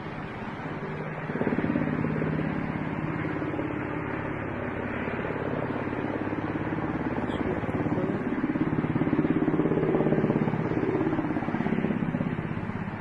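Helicopter flying overhead: a steady drone of rotor and turbine with a rapid beat. It grows louder about a second in, swells again to its loudest around ten seconds in, and drops back near the end.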